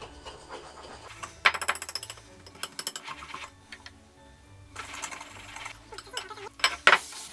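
Wire whisk rattling rapidly against the sides of a mixing bowl in several bursts with short pauses, stirring a dry, powdery mix of flour, sugar and spices with honey.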